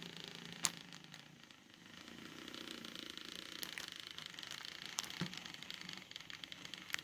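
Model diesel locomotive running slowly along the track: a steady motor hum and wheel-on-rail running noise, with a few sharp clicks spread through it.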